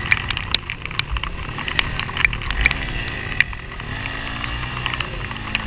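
ATV engine revving, its pitch rising and falling, as the quad's wheels spin in deep mud. Frequent sharp clicks sound over it.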